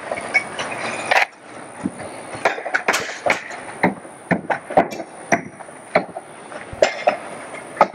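Irregular clatter of sharp knocks and cracks, several a second: asbestos-cement siding shingles being stripped off a house and shattering as they hit the ground.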